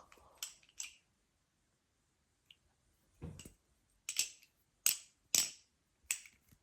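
Balisong being flipped: its handles click and clack against each other and the blade in sharp, irregular clicks, about seven in all, with a quiet stretch in the middle.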